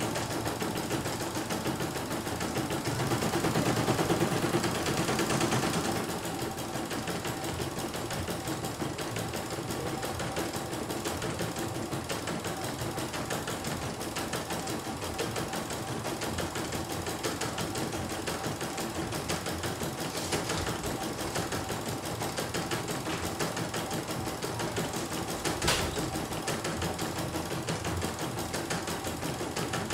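CNY E900 computerized embroidery machine stitching a design: a steady, rapid needle chatter, louder for a couple of seconds about four seconds in, with one sharp click near the end.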